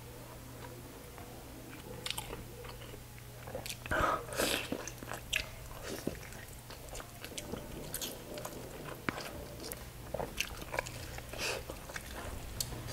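A person eating chicken adobo and rice by hand, close to the microphone: repeated bites and chewing with scattered short clicks, the loudest around the middle, over a faint steady low hum.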